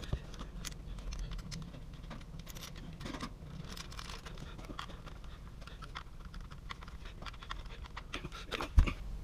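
Hands fitting a plastic discharge elbow and its metal flange onto a garbage disposal's housing: scattered small clicks and scrapes of plastic and metal parts being handled. Near the end comes one sharp knock.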